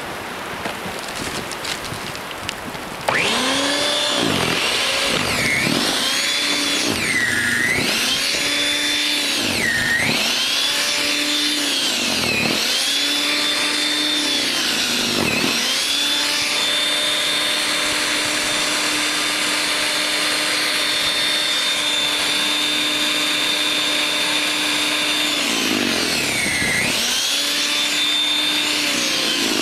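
WEN 5662 13.5-amp electric snow thrower's motor switching on about three seconds in with a sudden jump in loudness, then running with a strong whine. Its pitch sags again and again, about every two seconds, as the auger bites into deep snow, then holds steady for a stretch and sags once more near the end.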